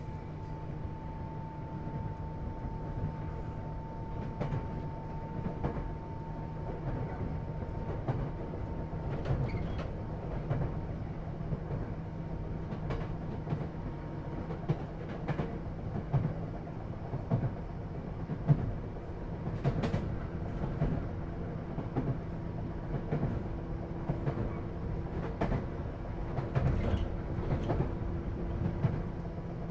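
Inside a JR East 211 series 3000-subseries electric train car on the move: a steady rumble of the running gear with irregular clicks of the wheels over rail joints. A high hum fades out before the halfway point, and a lower hum comes in during the second half.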